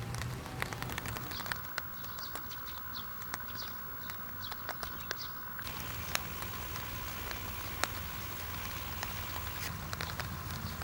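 Rain falling steadily, with scattered sharp drop ticks; a small bird chirps several times in the middle.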